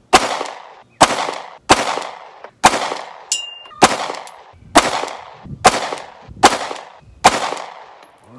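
Glock pistol with an AIM aftermarket barrel firing nine shots in slow fire, a little under a second apart, each report trailing off in echo. A short, high ring sounds once between the fourth and fifth shots.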